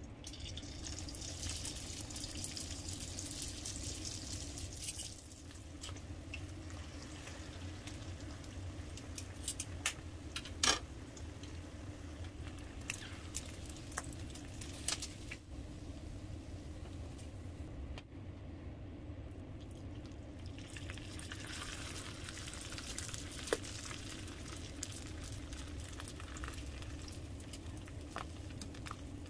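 Pork (chicharon bulaklak and pork belly) frying in hot oil: a steady sizzling hiss that fades for a few seconds past the middle, with a few sharp clicks of a utensil.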